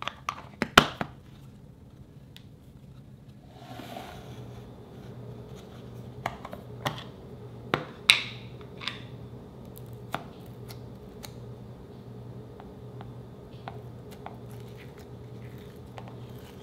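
Sharp clicks and taps of a clear plastic slime tub and its snap-on lid being handled, a quick cluster about a second in and another around the middle, the loudest of them near the middle, then fainter scattered ticks.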